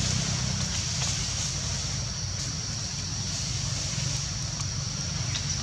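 Outdoor ambience: a steady high-pitched insect drone over a continuous low rumble, with a few faint clicks.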